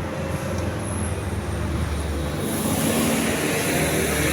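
Bus running on the road: steady engine hum with tyre and road noise. About two and a half seconds in, the hiss grows louder and the engine note shifts.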